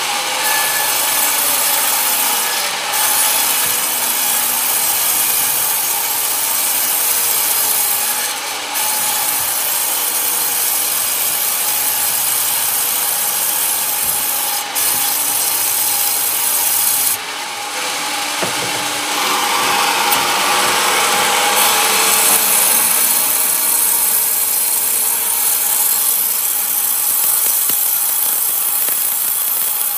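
Large vertical band saw running and resawing a wooden plank lengthwise: a steady machine hum under the rasp of the blade cutting through the wood. The cutting grows louder and harsher for a few seconds past the middle.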